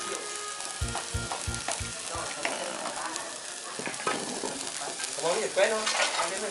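Fat sizzling and crackling on the hot embers under whole pigs spit-roasting over an open wood-and-charcoal fire. The hiss and crackle are steady, with a few low thumps in the first two seconds.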